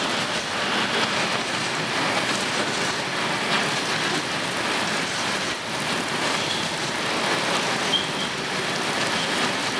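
Pouring rain falling steadily in an even hiss.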